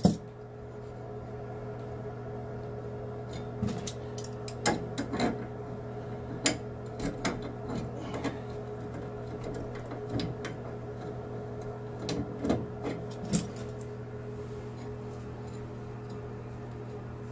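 Scattered clicks and light metal knocks of pliers and fittings as the supply lines under a sink are loosened from the shutoff valves, over a steady hum. The clicks come in a busy stretch through the middle and stop a few seconds before the end.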